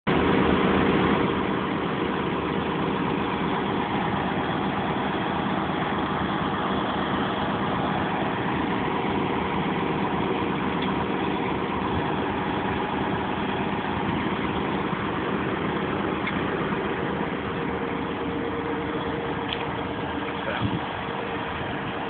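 Farm tractor's diesel engine running steadily at a constant speed, with a couple of light knocks near the end.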